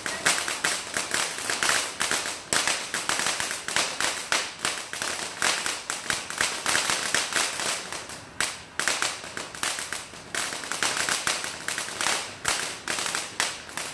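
Firecrackers going off in a rapid, irregular string of sharp cracks and pops.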